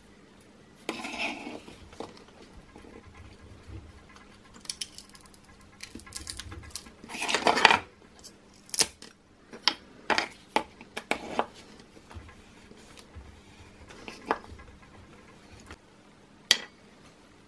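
Hard 3D-printed plastic parts being worked loose from a printer's build plate and handled: scattered sharp clicks and knocks, with a longer, louder scraping rattle about seven seconds in.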